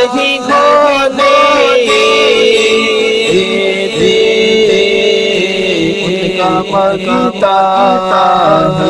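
A man singing a devotional naat into a microphone, drawing out long sustained notes that slide and waver from pitch to pitch without clear words.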